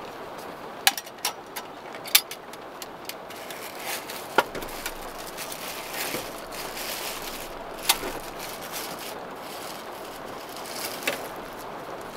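Rain falling on a car's roof, heard from inside the cabin: a steady hiss with irregular sharp ticks of single heavier drops.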